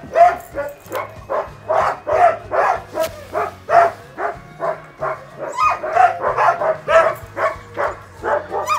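A team of harnessed sled dogs barking continuously, several dogs at once, a few barks a second: the dogs are excited to start running.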